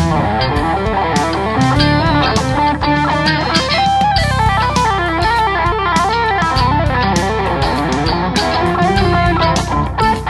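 PRS SE Multi Foil electric guitar playing quick melodic runs of changing notes, over a rock backing with bass and drum hits. The low end gets heavier about four seconds in.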